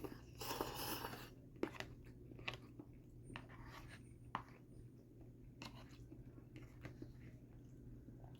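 Faint chewing of microwaved pasta with chicken and vegetables in Alfredo sauce: a brief rustle near the start, then scattered soft mouth clicks.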